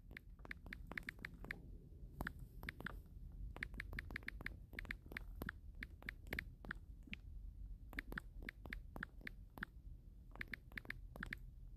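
Typing on a smartphone's on-screen keyboard: irregular runs of faint, quick taps, several a second, with short pauses between words.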